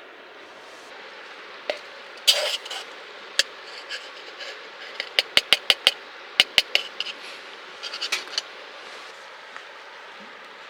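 Hard objects clicking and clattering against each other: a louder clatter about two seconds in, then a quick run of about eight sharp clicks midway and a few more after, over a steady background hiss.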